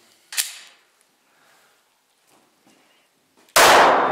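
A single pistol shot from a Glock 42 firing 9 mm Browning Short (.380 ACP), about three and a half seconds in, very loud with a long fading echo. A brief sharp click comes shortly after the start.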